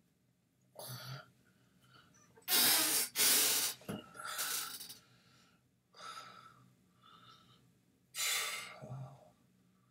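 A man's audible breathing close to the microphone: about six separate noisy breaths, the loudest pair about two and a half to three and a half seconds in.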